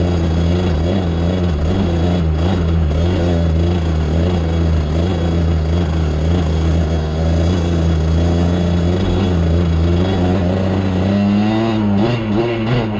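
ATV engine running at a steady speed under way, then revving up and down unevenly near the end.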